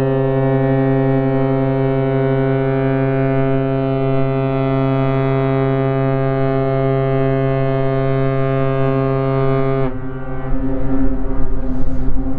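An AIDA cruise ship's horn sounding one long, steady, deep blast that cuts off abruptly about ten seconds in, followed by a louder rushing noise.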